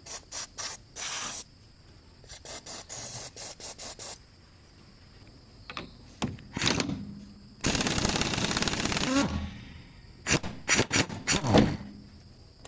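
Hissing spray in repeated short bursts, with one longer burst about two-thirds of the way through and a few faint squeaks between.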